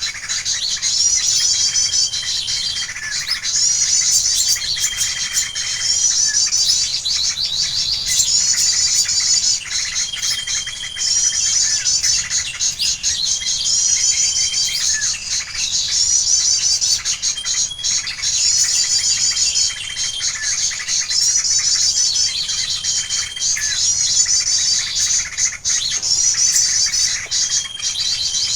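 Small songbird calls repeating in near-identical high, rapid chirping phrases about every two seconds, each ending in a short level whistle: a bird-call recording played on a loop as a lure for bird trapping.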